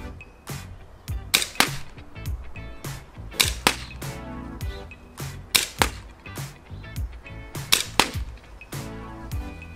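Background music with a strong, steady drum beat.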